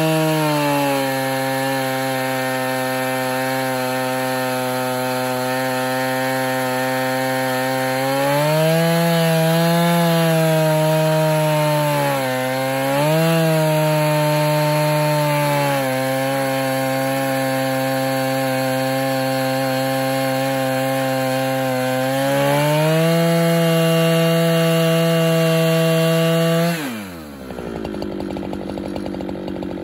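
Husqvarna 395XP two-stroke chainsaw on an Alaskan chainsaw mill, running at full throttle as it rips lengthwise through a log, its engine note sagging and recovering several times under the load of the cut. About 27 seconds in the throttle is released and the saw drops to idle.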